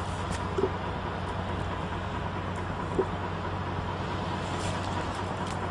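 Steady outdoor background noise with a constant low hum, and two faint clicks, one about half a second in and one about three seconds in.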